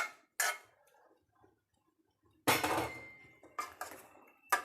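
Metal spoon scraping and knocking against steel cooking vessels as cooked dal is added and stirred into the boiled vegetables for sambar. The loudest knock comes about two and a half seconds in and leaves a brief metallic ring.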